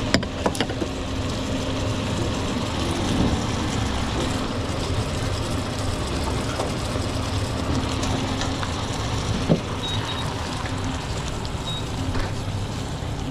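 Restaurant kitchen background: a loud, steady roar with a low hum. There are a few sharp knocks near the start and another about nine seconds in, and short high beeps, two together and then two single ones, over the last few seconds.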